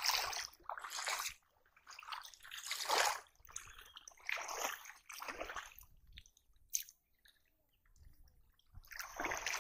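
Shallow river water splashing and sloshing in irregular swishes as a cane polo fishing trap is pressed down into it and worked by hand. There is a short lull about three quarters through, and then the splashing picks up again near the end.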